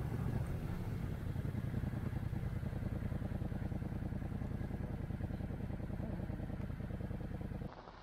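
Motorcycle engine running steadily at riding speed, with road noise; it cuts off suddenly near the end.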